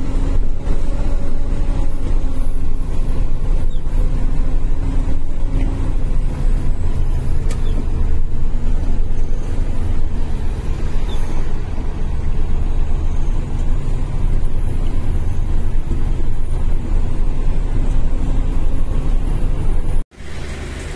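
Truck engine running steadily as the truck drives along, a loud, deep drone heard from inside the cab; it cuts off abruptly near the end.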